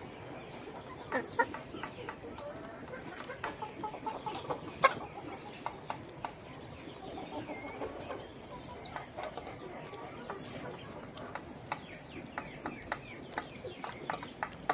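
A flock of poultry chicks calling with many short chirps, over a steady background of birds and frequent short sharp clicks.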